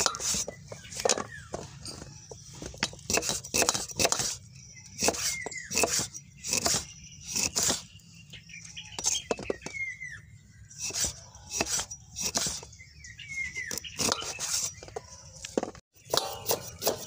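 A large kitchen knife slicing aathandai fruits on a wooden chopping block, the blade knocking on the wood in quick, uneven chops, about two a second.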